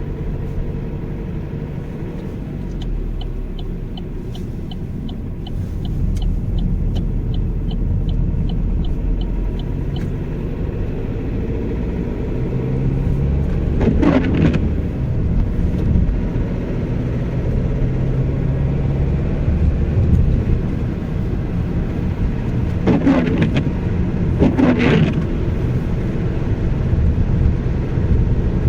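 Opel Astra 1.6 (81 kW) engine running under way, with a rattle on acceleration that the owner is recording as a fault. A regular ticking, about three a second, runs for several seconds near the start, and the pitch sweeps up and back down twice later on.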